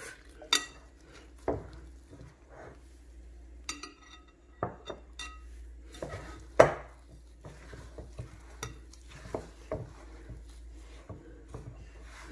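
Hands kneading flour and warm water into dough in a mixing bowl: scattered, irregular knocks and clinks against the bowl, the loudest about six and a half seconds in.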